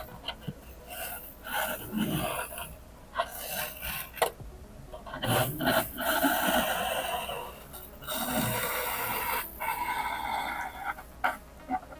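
Hot soldering iron tip drawn across a styrofoam plate, melting lines into the foam: irregular rasping, scraping strokes with short pauses between them and a few sharp clicks.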